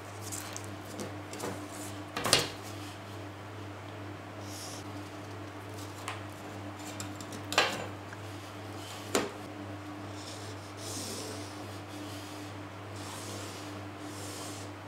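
Drafting tools being handled on pattern paper on a table: short marker and paper rubbing strokes and three sharp knocks as tools are set down, the loudest about two and seven and a half seconds in, over a steady low hum.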